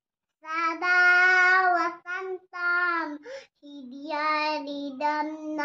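A small girl singing a song in a high child's voice, in short held phrases with brief pauses between them, starting about half a second in.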